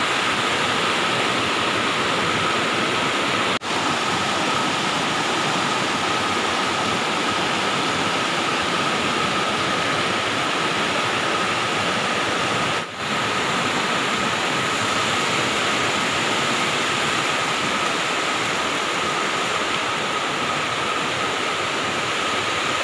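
Steady rush of a rocky river's flowing water, with a thin steady high note running through it. The sound drops out briefly twice, about three and a half and thirteen seconds in.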